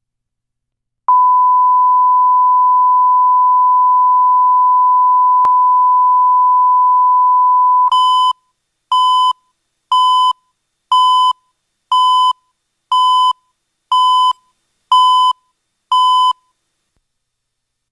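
Broadcast line-up test tone: one steady electronic beep held for about seven seconds, then nine short beeps a second apart, counting down. A faint click falls midway through the long tone.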